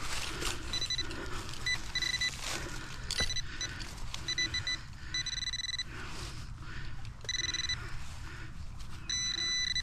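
Handheld metal-detecting pinpointer beeping in short, high chirps, with longer steady tones about five, seven and nine seconds in, as it is worked through the loose soil of a dug hole to locate a buried coin. Rustling and scraping of dirt underneath.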